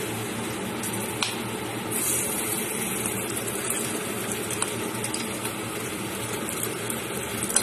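Chopped garlic frying in hot mustard oil with nigella seeds and green chillies in a kadai: a steady sizzle that flares brighter about two seconds in as the garlic hits the oil.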